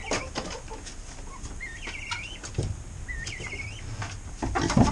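Chickens calling: three short warbling calls, with scattered knocks and clicks, and a louder low grunt near the end.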